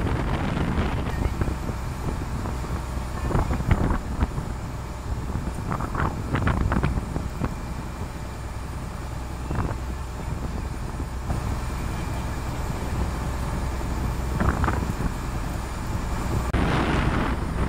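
Wind blowing across the microphone over choppy sea water, with a steady low rumble beneath it and a few louder gusts every few seconds.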